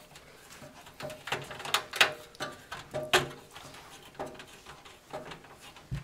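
A screwdriver driving motherboard screws into the case's standoffs: irregular light metal clicks and scrapes, several times, a second or less apart.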